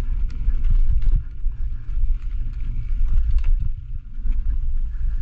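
Mountain bike ridden fast down a dirt forest trail: wind buffeting the microphone in a steady low rumble, with the frequent clatter and knocks of the bike and tyres jolting over roots, twigs and bumps.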